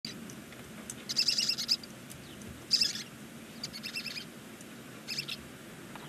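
Barn owl twittering in the nest box: four short bursts of rapid, high chittering pulses, the first two the loudest.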